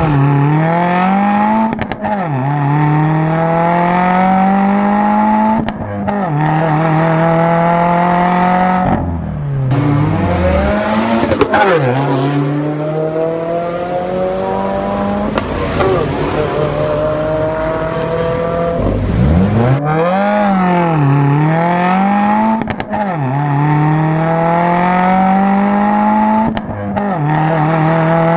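Subaru WRX's turbocharged flat-four engine, heard through its aftermarket exhaust, accelerating through the gears: each time the pitch climbs steadily and then drops back at an upshift, several times over. For about ten seconds in the middle a loud rushing hiss lies over the engine note.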